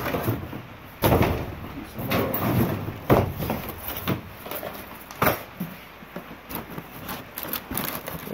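Rummaging by hand through stored clutter: irregular knocks, bumps and scrapes of objects being moved, the sharpest about one, three and five seconds in, with a cardboard box being handled near the end.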